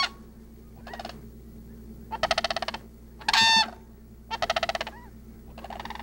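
Sandhill cranes calling in flight: about five rolling, rattling calls in quick succession, with fainter short calls from the flock between them.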